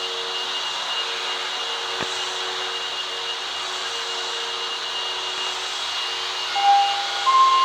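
Steady hiss and hum of a subway train and platform, with no rise or fall in pitch, and a faint click about two seconds in. Near the end two higher held notes sound, one after the other, like the start of a chime.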